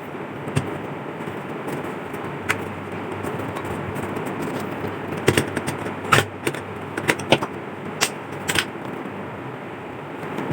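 Handling of metal lamp parts and tools: scattered sharp clicks and taps over a steady background rush, coming closer together in the second half.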